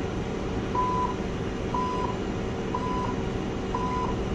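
Electronic timer beeping once a second, five short identical beeps, over a steady background hum. It counts off the seconds while a soaked sponge sits on the freshly lasered cornea.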